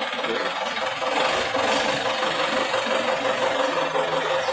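Engine of a DFQ-200W pneumatic water-well drilling rig running steadily, with a constant hum over its noise, growing a little louder about a second in.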